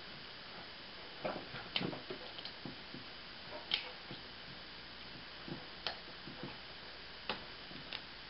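Scattered small clicks and taps of hands handling a paintball marker's electronic grip and its battery while the battery is fitted into the grip's compartment.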